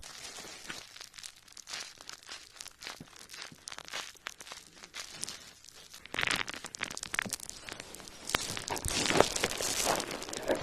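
Close-miked crinkling and crackling: a dense run of small, irregular clicks that gets louder about six seconds in.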